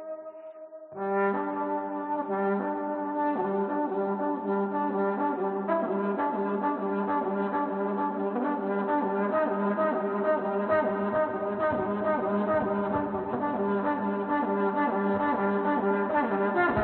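Trombone playing held notes layered through a live looper, several sustained tones sounding at once and building into a dense chord. A short drop in level about a second in, before the layered notes come in.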